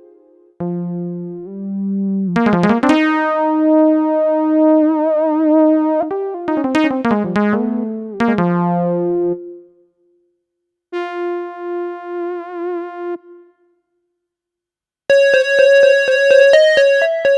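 Yamaha SHS-500 Sonogenic keytar playing a melody in an Indian style, with reverb: phrases of held notes with vibrato, broken by short silences. About two seconds before the end a different tone comes in, sharply plucked, with quick notes.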